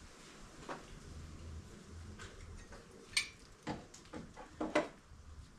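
A few scattered light clicks and knocks of hand tools and metal parts being worked in a car's engine bay, the sharpest a little past the middle and a quick run of them near the end.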